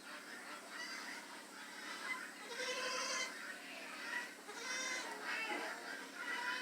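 A litter of three-week-old puppies whining and squealing, several high-pitched cries overlapping.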